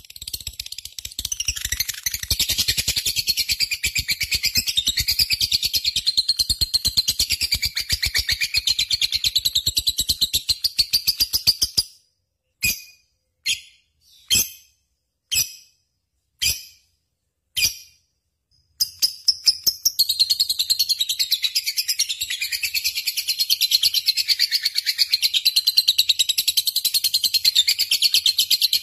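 Lovebird singing in full voice: a long, fast chattering trill of high notes. Partway through it breaks off into about six separate short chirps, then the continuous trill resumes.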